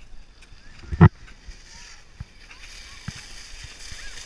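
Plastic saucer sled sliding down over snow, its scraping hiss growing louder as it comes closer in the second half. A single sharp thump about a second in.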